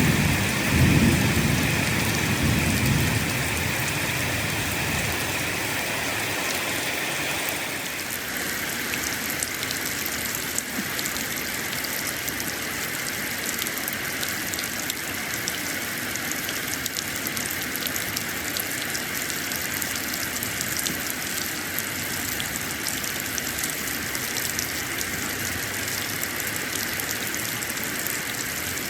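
Steady rain falling, with a low rumble of thunder in the first few seconds. About eight seconds in the rain changes to a lighter patter of distinct drops that continues steadily.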